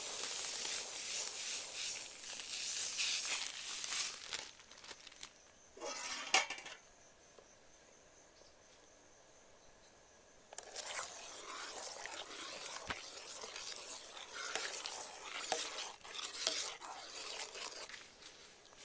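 Sago pearls poured in a steady stream into a metal pot of pumpkin porridge, hissing for about four seconds, with a few clinks soon after. After a quiet stretch of a few seconds, a ladle stirs the pot, scraping and clattering against the metal.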